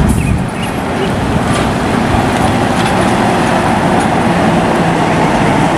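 High-deck coach bus driving and turning on a road: steady engine and road noise.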